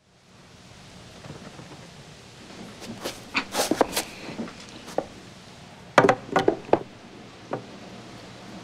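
Quiet room ambience with a steady background hiss, broken by irregular knocks and clattering thuds in two clusters, about three seconds in and about six seconds in, and one more knock near the end.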